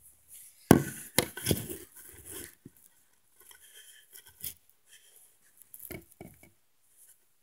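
Wooden popsicle sticks and craft supplies clattering and rustling as they are handled and sorted, with a cluster of sharp clacks about a second in, then lighter scattered clicks.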